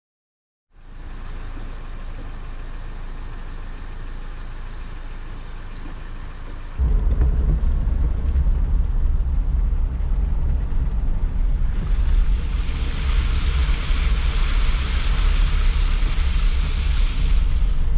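Car driving in heavy rain, heard from inside the cabin: a steady low rumble of engine and tyres with rain on the glass. It gets much louder about seven seconds in. Near the end a loud hiss of rain or water spray rises over it for several seconds.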